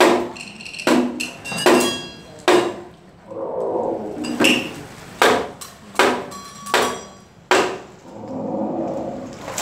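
Traditional Vietnamese water puppet theatre percussion: sharp wooden and metallic strikes, about one a second, some ringing briefly. A held voice or instrument sounds between them twice, about three seconds in and near the end.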